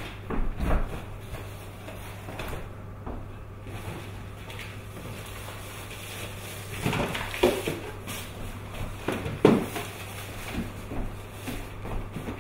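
Wrapped cardboard present boxes being handled and stuffed into a jute sack: scattered rustling and knocks, loudest about seven and nine and a half seconds in, over a steady low hum.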